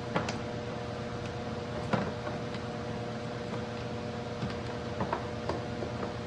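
Steady hum of a small motor with a few light clicks and knocks of parts being handled, the sharpest about two seconds in and a small cluster near the end.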